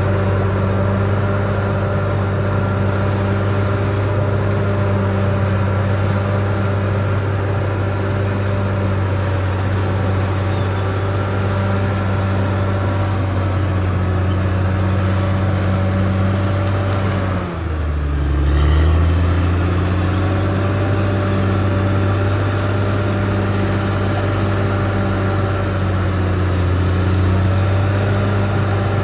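Caterpillar D6R bulldozer's diesel engine running steadily. A little past halfway its note drops sharply, then climbs back to the same pitch over a couple of seconds.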